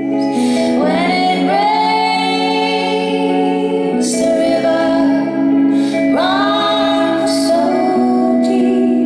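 Two women singing a song together live, their voices sweeping up into long held notes about a second in and again around six seconds, over sustained electric guitar chords.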